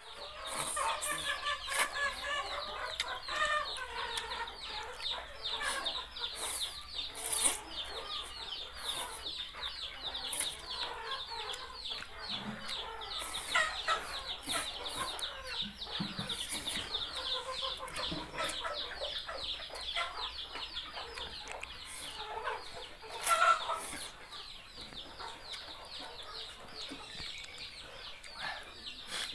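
Rice noodles slurped and chewed from a bowl with chopsticks, in short noisy sucks, over a steady background of rapid high chirping.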